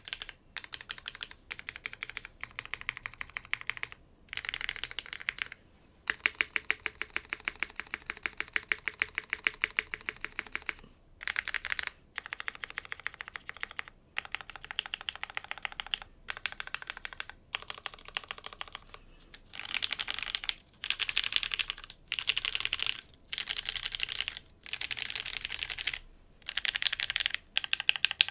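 Typing on a custom mechanical keyboard with lubed vintage Cherry MX Black linear switches on a polypropylene plate in an O-ring gasket mount, with GMK keycaps: quick runs of clacky keystrokes broken by short pauses.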